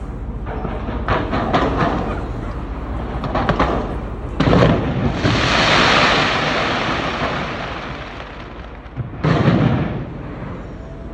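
Aerial fireworks bursting: crackling clusters, a heavy boom about four seconds in followed by a long loud crackling hiss, and a second boom near the end.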